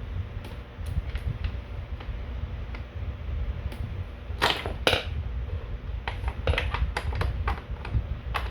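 Sharp metal clicks and clinks of a wrench and splined bottom bracket tool being turned on a bicycle bottom bracket cup as it is tightened in. Two louder clanks come about four and a half and five seconds in, then a run of quicker, lighter clicks near the end.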